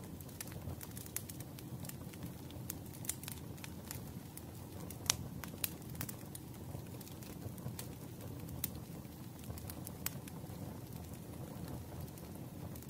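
Wood fire crackling: irregular sharp pops and snaps over a low, steady rush of burning logs, with one louder pop about five seconds in.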